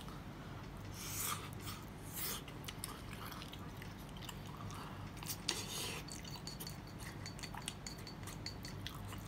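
Faint eating sounds of a person chewing soft, sticky mochi, mentaiko and cheese, with a few soft noisy swells and scattered light clicks.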